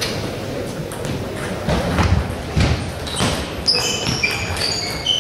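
Table tennis ball clicking off bats and table several times in a rally, then short high squeaks of sports shoes on the hall floor as the players move, over a murmur of voices in the hall.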